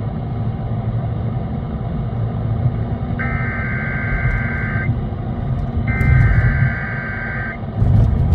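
Emergency Alert System (SAME) header data bursts over AM radio: two buzzy digital tone bursts, each about a second and a half long and a second apart, starting about three seconds in. They are the coded header that opens an EAS alert, here a weekly tornado-drill test. A steady low rumble runs underneath.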